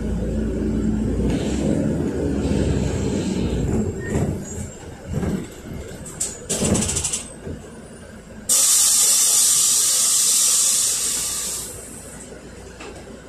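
Inside a NefAZ 5299 city bus on the move: its Mercedes-Benz M906 natural-gas engine runs loud and low, then eases off after about four seconds, with a few short rattles. About eight and a half seconds in, a loud hiss of compressed air vents from the bus's air system, lasts about three seconds and dies away.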